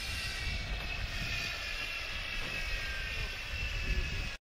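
Small model-aircraft engine running with a steady high whine that drifts slightly lower, over a low uneven rumble. The sound cuts off suddenly near the end.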